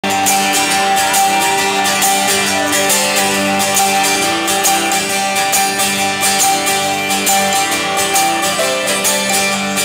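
Live band music: a guitar-led instrumental intro with strummed guitar over steady, sustained notes.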